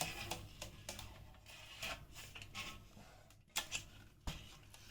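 Light scattered clicks and faint rustling as plastic rim tape is pulled off a carbon road-bike rim, with two sharper clicks in the second half.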